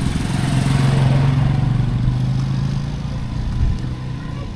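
Motorcycle engine passing close by: a steady low engine note that grows loudest about a second in, then fades away. A short knock sounds about three and a half seconds in.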